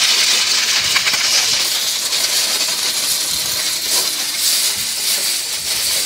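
Compressed air hissing steadily from an air blow gun as it is blown through a car radiator's core, driving dirt and debris out the other side.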